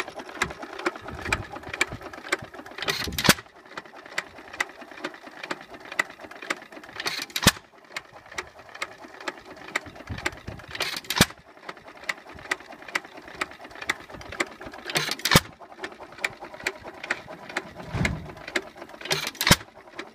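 1919 Amanco Hired Man 2-1/4 HP hit-and-miss stationary engine running. There are louder firing bursts about every four seconds, with a light, regular clicking from the engine's mechanism as it coasts between them.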